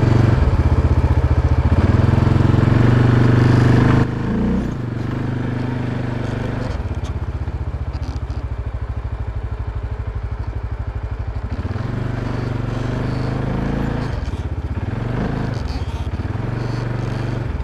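ATV engine running under throttle, loud for the first four seconds, then easing off to a steadier, slightly quieter run with the engine note shifting a few times.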